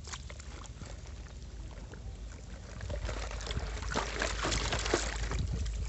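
Water sloshing and bubbling as a plastic basket full of muddy toys is dunked into a pond, getting louder from about three seconds in.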